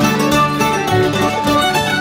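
Background music with plucked strings, bluegrass-style, with quick changing notes.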